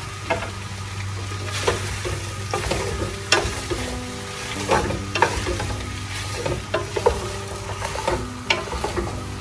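Wooden spatula stirring and tossing shredded jicama and bamboo shoots in a hot pot, with a steady sizzle of the vegetables frying. The spatula scrapes and knocks against the pot irregularly, about once a second.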